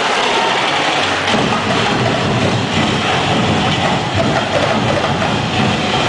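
Loud, dense festival drumming and crowd noise from the dancers' drum ensemble, heard through an overloaded compact-camera microphone as a steady roar. A heavier low rumble comes in a little over a second in.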